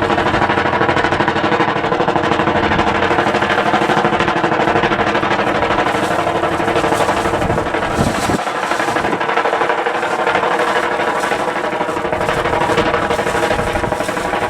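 Kite buzzing loudly in strong wind, a fast rattling drone with a steady pitch that dips briefly about halfway through.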